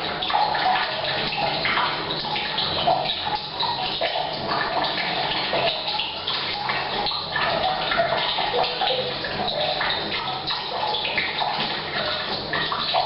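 Rain falling on a roof mixed with a stream of tap water pouring from a pipe into a water tank. The two blend into one steady splashing that echoes in a bathroom.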